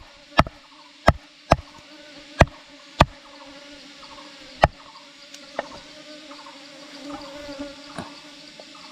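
A series of sharp knocks at an uneven pace, about one or two a second, thinning out after about five seconds, over a steady insect buzz.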